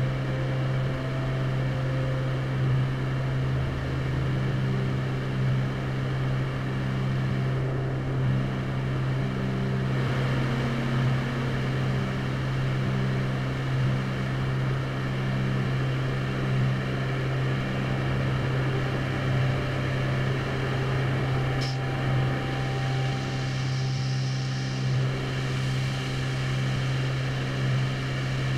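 Ambient drone music played on guitars through effects: a steady low drone holds throughout, with softer sustained notes above it that swell and fade every second or so.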